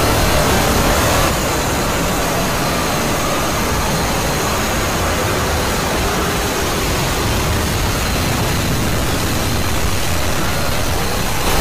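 Loud, harsh, steady noise spread evenly across all pitches, with no clear tone or rhythm.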